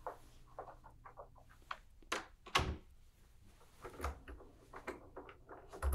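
Scattered light knocks and clicks of objects or a door being handled, the loudest a thud about two and a half seconds in.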